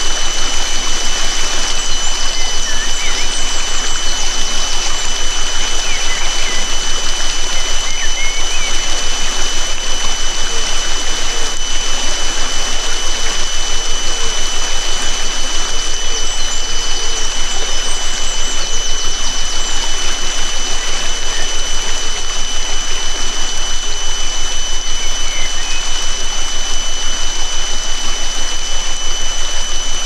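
A steady, high, pure electronic tone, a healing-frequency sine tone, held over a recording of running stream water with occasional faint bird chirps.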